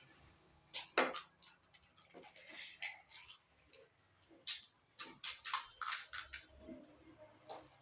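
People eating pani puri fast: irregular, sharp crunches of the crisp puris and wet slurps of the spiced water, some of them loud and close.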